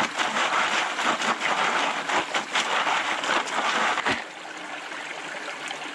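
Water sloshing and splashing in a plastic gold pan as it is worked in a shallow creek, with many short splashes. About four seconds in the sloshing stops, leaving the creek's steady running water.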